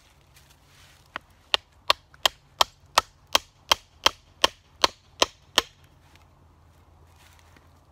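About a dozen sharp wooden knocks at an even pace, roughly three a second, as a stick used as a baton strikes a piece set into a green wood branch, batoning it while shaping a new hatchet handle.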